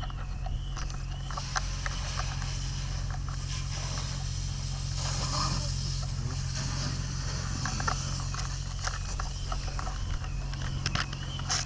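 Fire hose spraying a fog of water onto a burning car, a hissing spray that swells through the middle, over a steady low engine drone, with scattered knocks. A wavering high tone, like a siren or alarm, sounds at the start and again near the end.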